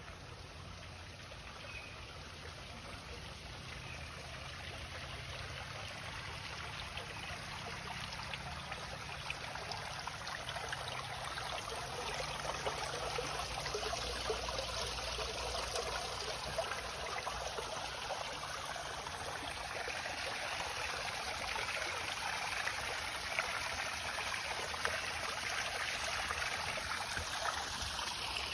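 Water from a home-built backyard waterfall trickling and splashing steadily, growing louder over the first half and then holding steady.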